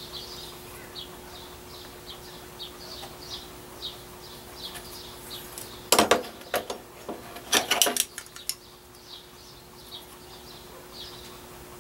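Metal parts clinking and clattering on a wooden workbench as a small metal bracket and a steel combination square are picked up and set down, in two short bursts about six and eight seconds in. Underneath, a faint steady hum and short high chirps repeating about twice a second.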